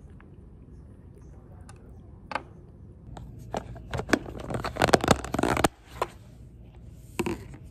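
A red plastic snap-on lid being pressed down onto a plastic food-storage tub: a quiet start with a few clicks, then a dense run of sharp plastic clicks and crackles about three seconds in. A couple of separate clicks follow as the container is handled.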